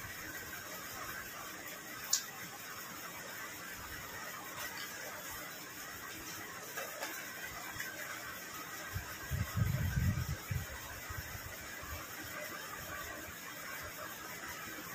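Two people eating rice by hand from plastic plates: faint chewing and fingers working the food on the plates over a steady background hiss. A sharp click comes about two seconds in, and a short cluster of low thumps about nine to ten seconds in.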